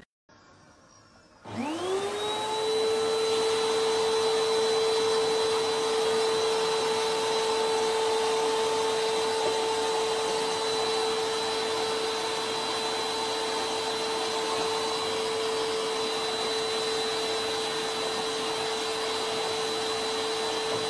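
Vacuum cleaner switched on about a second and a half in: its motor whine rises quickly to a steady pitch over a rushing hiss of air, then runs steadily as a toddler pushes the floor nozzle over a rug.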